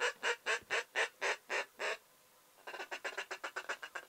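Duck call blown to bring in circling ducks: a string of about eight evenly spaced quacks, about four a second, then after a short pause a faster, softer run of notes that trails off.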